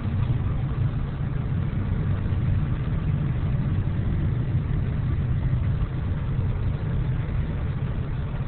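Steady low rumble of a car's engine and road noise, heard from inside the cabin as the car drives slowly.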